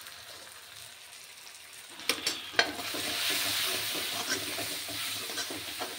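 Onion-tomato masala with freshly added ground spices sizzling in hot oil in a metal kadai while a metal spoon stirs it, scraping and knocking against the pan. The sizzle grows louder about two seconds in, with a few sharp clicks of the spoon on the metal.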